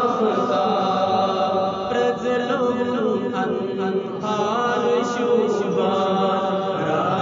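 A voice chanting a melodic religious recitation in long, gliding, drawn-out phrases.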